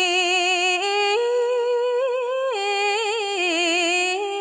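A woman's unaccompanied voice chanting smot, Khmer Buddhist sung verse, drawing out long held notes with a wide vibrato. The melody climbs in steps over the first two seconds and then falls back down.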